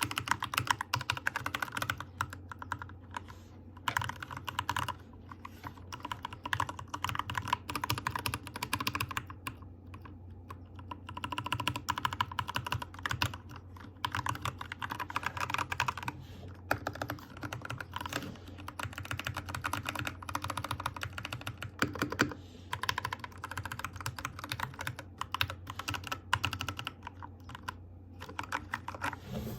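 Typing on a Keychron K2 Pro mechanical keyboard: fast runs of key clicks and clacks, broken by short pauses a few times.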